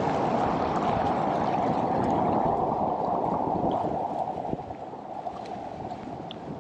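Whitewater rapids rushing and gurgling, a steady loud wash of water that eases somewhat about four seconds in.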